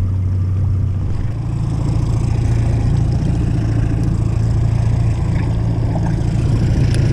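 A fishing boat's motor running steadily at trolling speed, a low, even hum whose pitch sits slightly higher from about a second in.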